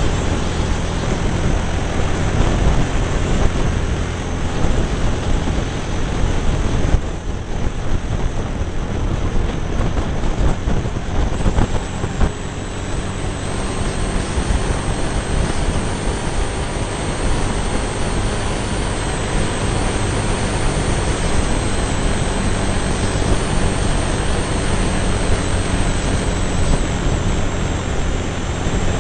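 Cagiva Navigator's V-twin engine running steadily at road speed under a heavy rush of wind on the microphone. The sound dips briefly about seven seconds in and again around twelve seconds.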